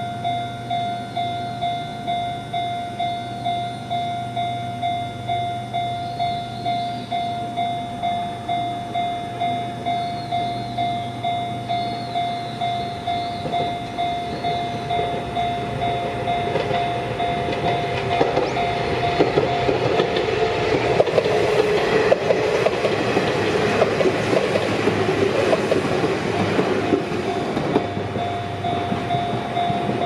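Japanese level-crossing warning bell ringing in a steady, even pulse while an Izuhakone Railway Sunzu Line electric train approaches and passes over the crossing. The train's noise builds from about halfway in and is loudest in the last third, with wheels clattering over the rails, and the bell keeps ringing as it fades.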